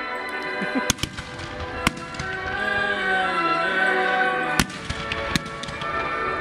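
Fireworks going off in a series of about five sharp bangs, the loudest about two-thirds of the way through, over music playing throughout.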